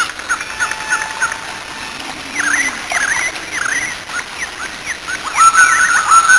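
Animal calls in a rapid series of short, high cries, each a quick swoop in pitch, over a steady noisy wash. The calls get louder about five seconds in.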